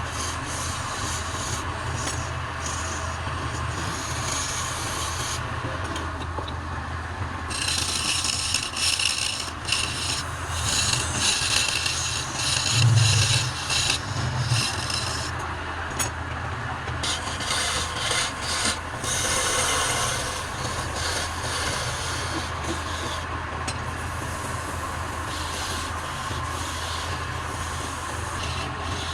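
Wood lathe motor running with a steady hum while a tool or abrasive scrapes against the spinning wood in uneven bursts, heaviest in the middle.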